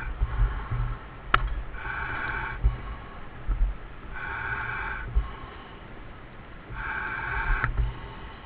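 Diver breathing through a demand regulator over dive comms: each inhalation is a hissing tone about a second long, repeating about every two and a half seconds, over a low uneven rumble, with a sharp click a little over a second in.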